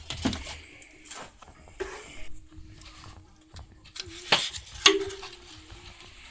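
Scattered clicks, knocks and rustles of a hand grabbing and moving rubber hoses, plastic covers and wiring in a car's engine bay, with two sharper knocks about four and a half and five seconds in.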